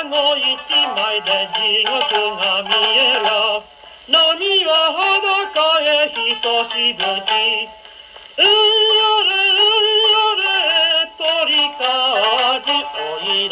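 A 1934 78 rpm record playing acoustically on a Columbia G-241 portable gramophone: a sung Japanese song with accompaniment, in phrases with two short breaks, about four and eight seconds in.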